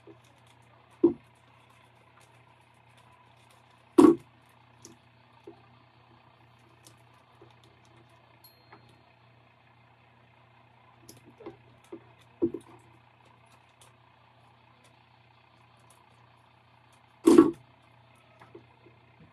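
Hands handling a vinyl decal and its transfer tape on a wooden tabletop: a few sharp knocks, the loudest about four seconds in and near the end, with faint ticks and rustles between. A steady low hum runs underneath.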